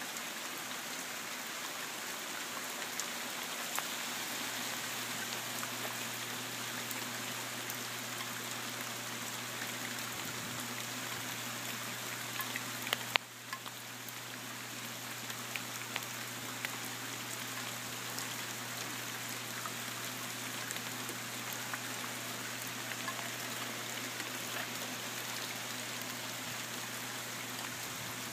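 Steady rain falling on a garden, with many small raindrop ticks through it and a faint low hum underneath. One sharp knock stands out about halfway through.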